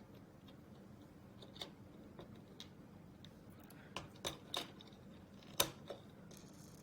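Small plastic kit parts clicking and tapping as they are handled and fitted together by hand: about seven separate sharp clicks, several close together around four to five seconds in, the loudest one near the end. A faint steady hum lies underneath.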